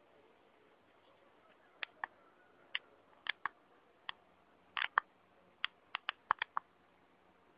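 A rabbit crunching at its food: a string of short, sharp, irregular crunches, two or three a second, starting about two seconds in.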